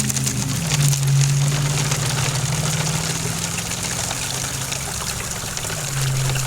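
Water running and trickling while a small pump motor hums steadily, typical of a recirculating setup used to wash gold-bearing tailings. The hum shifts slightly in pitch near the start and again near the end.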